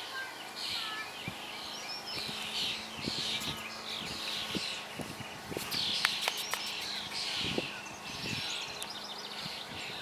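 Birds chirping and calling in quick repeated phrases, with a faint steady hum underneath.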